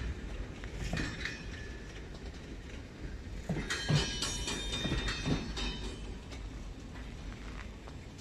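Loaded freight wagons rolling slowly past, their wheels knocking over rail joints over a steady rumble. A high-pitched squeal of steel wheels on the rails joins in for a couple of seconds in the middle.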